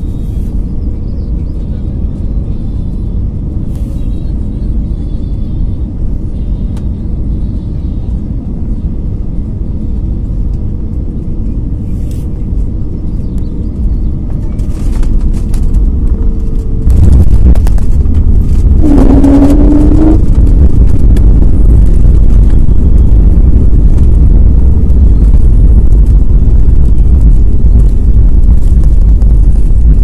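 Airliner cabin noise during landing: a steady low engine drone on final approach, then about halfway through the touchdown and a sudden jump to a much louder rushing roar as the aircraft rolls out on the runway under reverse thrust and braking. A short rising whine comes soon after the roar starts.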